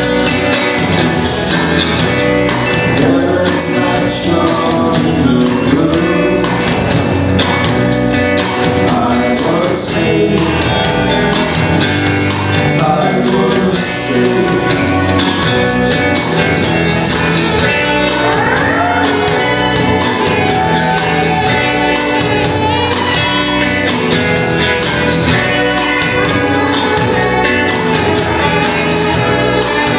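Live band song: a woman singing over guitar, fretted bass guitar and a drum kit keeping a steady beat, with a saxophone joining near the end.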